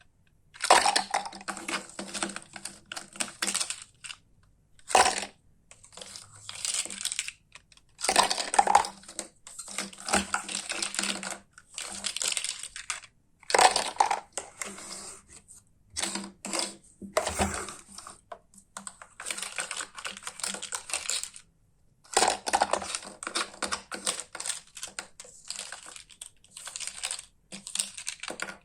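Hard plastic toy pieces clicking and clattering as they are handled, in bursts of a second or few with short pauses between.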